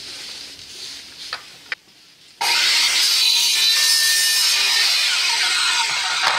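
A saw cutting through plastic CPVC tubing, trimming a piece shorter: a steady, loud cutting noise that starts abruptly about two and a half seconds in, after a couple of light clicks.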